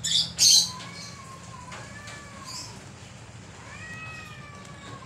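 Two cats in a standoff, growling at each other: a couple of short, loud hisses at the start, then three drawn-out, wavering yowls, the last rising and falling near the end.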